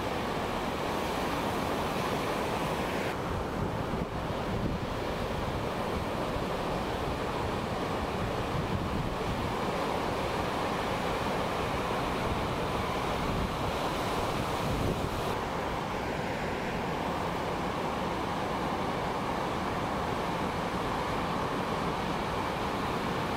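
Ocean surf breaking and washing in, a steady rush of white water, with wind buffeting the microphone.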